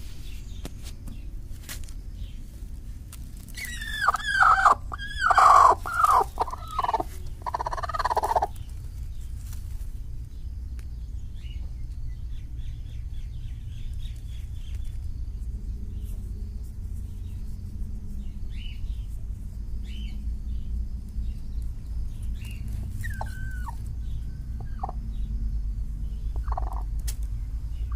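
A hen calling: a loud run of short falling calls about four seconds in, lasting some four seconds, then a few single calls near the end. A steady low rumble runs underneath.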